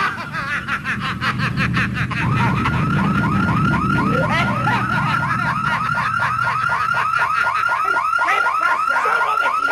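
Electronic alarm warbling in a fast repeating rise-and-fall chirp, about four a second, starting about two seconds in. A low rumble underneath fades out by about halfway.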